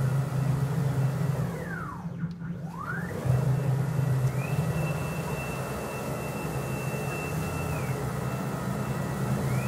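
Stepper motors of a homebuilt CNC gantry mill whining as the gantry moves, the pitch gliding down as the axes slow and back up as they speed up: one deep dip a couple of seconds in, then a long steady stretch that drops again near the end and climbs back. A steady low hum runs underneath.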